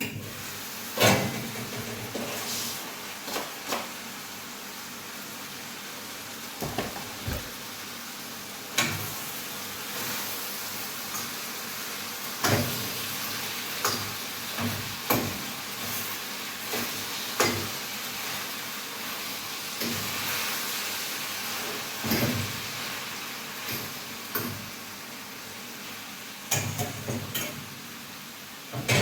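Food sizzling in a hot cooking pot, a steady hiss, with scattered knocks and clatters of utensils and pans.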